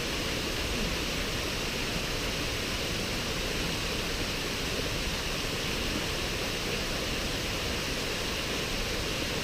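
Steady rushing water, an even unbroken roar with no distinct splashes or changes.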